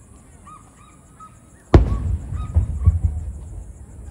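A firework shell bursting with a single sharp boom a little under two seconds in, followed by about a second and a half of rumbling crackle and echo.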